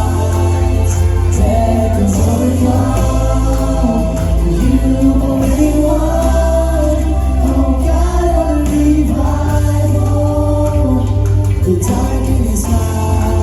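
Live worship music: a band with heavy sustained bass under a group of singers holding long, gliding sung notes.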